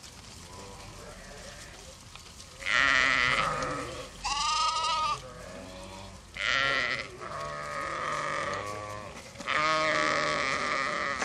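Sheep bleating, four calls in all: the second is higher-pitched, and the last is long and wavering.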